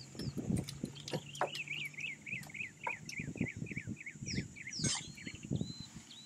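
African elephant feeding on grass, its trunk working among the stems: repeated rustles and soft thuds. A bird calls a quick run of chirps, about six a second, starting about a second in and lasting about three seconds.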